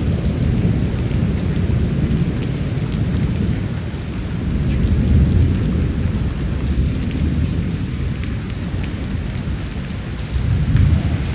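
Steady rain falling with low, rolling thunder rumbling under it, swelling about five seconds in and again near the end; scattered drops tick on a hard surface.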